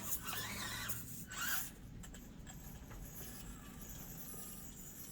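Axial SCX24 micro crawler's small electric motor and gears whirring faintly as it crawls over the course, with a brief louder scrape about a second and a half in.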